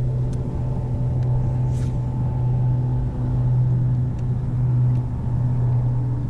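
Bass boat's bow-mounted electric trolling motor running with a steady low hum, carried through the deck, with a few faint clicks and a brief swish about two seconds in.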